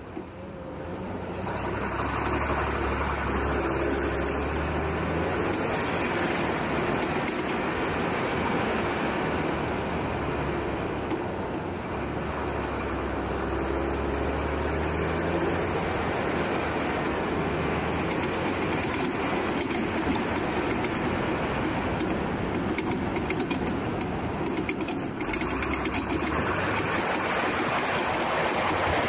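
SISU GTP 4x4 protected truck driving on gravel: its engine running under load, mixed with a steady rush of wind and tyre noise. It grows louder about a second in as the truck picks up speed.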